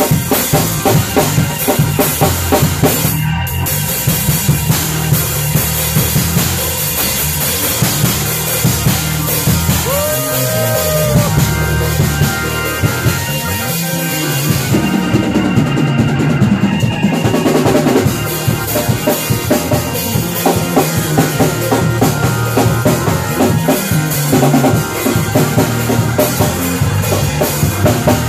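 Live band jamming, with a drum kit driving a busy groove over bass and keys. The cymbals drop out for a few seconds about halfway through, then come back.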